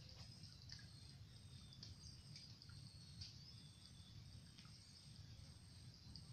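Near silence of open-air pond-side ambience: scattered faint high chirps and ticks of birds and insects over a low steady rumble.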